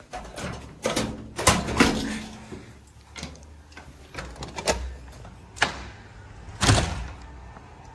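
Push-bar exit doors being pushed open and swinging back, giving a series of clunks and knocks with one heavy bang late on.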